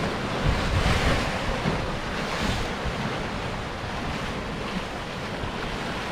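Sea surf breaking against rocks, a wave surging and washing up about a second in and then settling into a steady wash, with wind on the microphone.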